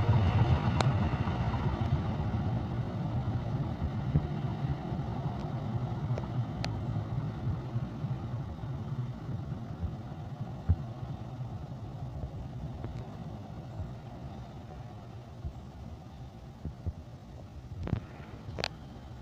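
KAI CC206 diesel locomotive departing, its engine rumbling low and steadily fading into the distance as the train pulls away. A few sharp clicks near the end.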